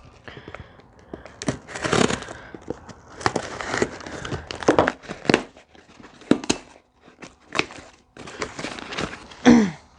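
Packing material crinkling and tearing as a parcel of parts is unwrapped by hand, with irregular rustles and light knocks throughout.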